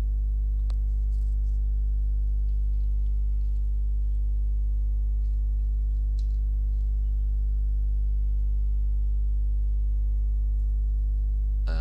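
Steady electrical mains hum: a strong low drone with a stack of higher steady tones above it. A few faint clicks of computer keys being typed come in the first half.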